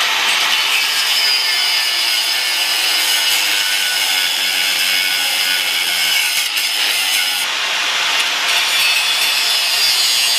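Electric angle grinder running continuously while it grinds metal off a Yamaha R6 motorcycle kickstand, a steady loud rasp over a faint motor whine.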